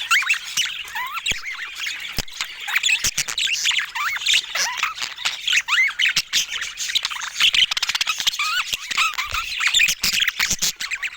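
Budgerigars chattering and warbling without pause: many quick rising and falling chirps overlapping, mixed with short sharp clicks.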